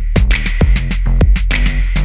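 Background music with a steady, fast drum beat over a sustained bass line.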